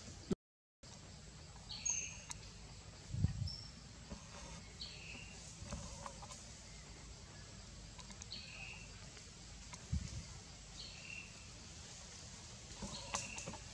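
A forest bird calling over and over, a short falling call repeated about every three seconds. Two dull low thumps come a few seconds in and again later, and the sound drops out briefly near the start.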